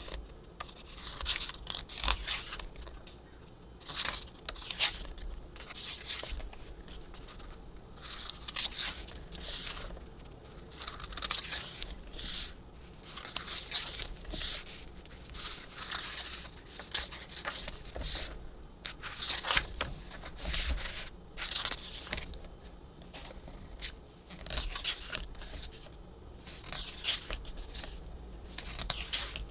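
Pages of a photobook being turned and smoothed by hand: repeated paper rustles and swishes every second or two.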